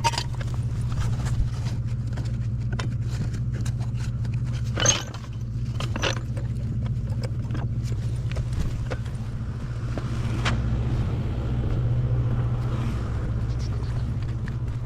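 A vehicle engine runs steadily with a low hum. Scattered light clicks sound over it, and there is one sharp knock about five seconds in.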